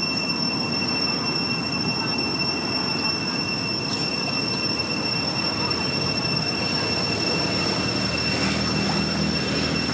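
Steady, high-pitched insect drone, unbroken, over a low rumble of outdoor noise.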